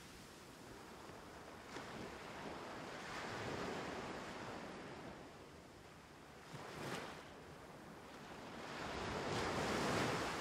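Surf-like rushing noise that swells and falls back several times, the loudest swell near the end.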